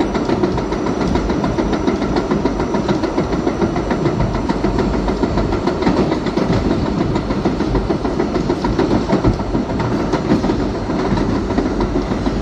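R32 subway train running at speed, heard from inside the car: a steady rumble of wheels on rail and motor noise, with many quick clicks from the track.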